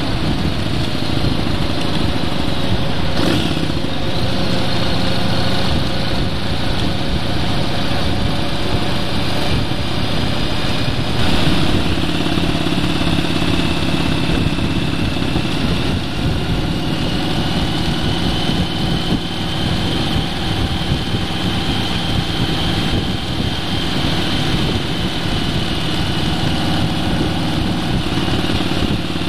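A vehicle's engine running at a steady cruise, mixed with wind and road noise, with faint tones that drift slowly in pitch. There are brief knocks about 3 and 11 seconds in.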